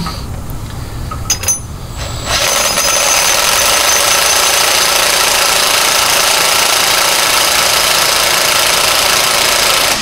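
Impact wrench hammering steadily on a U-bolt nut, starting about two seconds in. It can run the nut only so far before the socket runs out of depth on the bolt.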